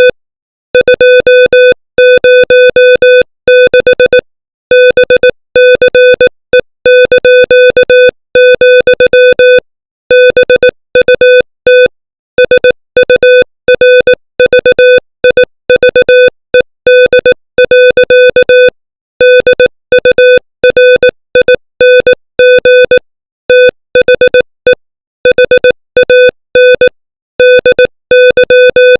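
Morse code sent at 18 words per minute as a keyed electronic tone: one steady beep pitch switched on and off in short dots and longer dashes, with brief gaps between letters and words.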